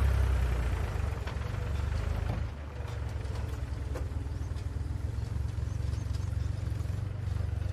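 Diesel engines of a backhoe loader and a tractor running with a low, steady rumble. The sound eases a little after about two and a half seconds as the tractor with its loaded trailer pulls away.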